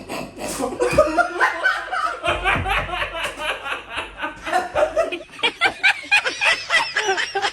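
Laughter: people laughing in quick, repeated bursts, densest in the second half.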